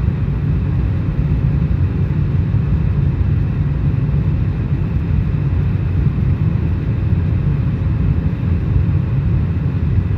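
Steady low rumble of airliner cabin noise, engines and rushing air, with a faint steady hum above it, as the plane climbs shortly after takeoff.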